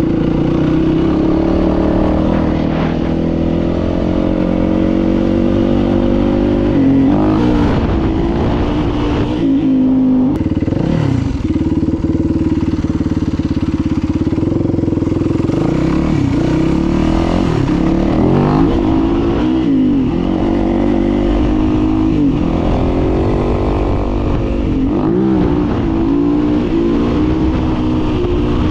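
Yamaha WR450F dirt bike's single-cylinder four-stroke engine being ridden hard, revving up and dropping off again and again through the gears. It settles to a steady idle near the middle, then pulls away revving again.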